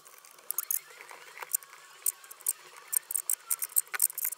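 Light, quick scratching clicks from the metal pin of a tramming arm in a CNC spindle collet dragging over the MDF spoilboard as the spindle is turned by hand. The pin is touching the bed all the way around, the sign that the spindle is now trammed square to the bed.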